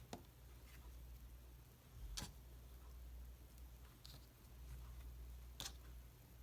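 Slime being handled: three soft, sharp clicks and pops, the loudest about two seconds in, over a low steady hum.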